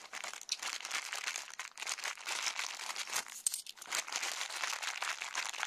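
Clear plastic coin bag crinkling steadily as fingers dig into it to get at the coins inside.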